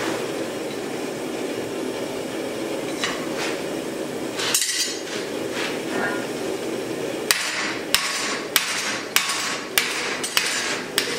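Steady roar of a forge fire, then from a little past halfway a run of about seven evenly spaced hammer blows on red-hot axe steel, roughly one and a half a second.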